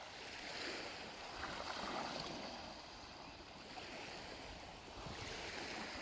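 Black Sea waves washing onto the shore, the surf swelling twice about four seconds apart.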